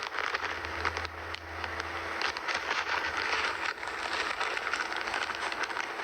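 Packaging crinkling and rustling as it is handled, a dense run of small irregular crackles.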